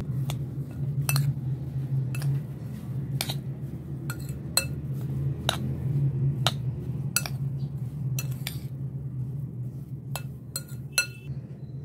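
Metal spoon clinking and scraping against a mixing bowl while a potato and vegetable filling is stirred, in irregular clinks about one or two a second over a steady low hum.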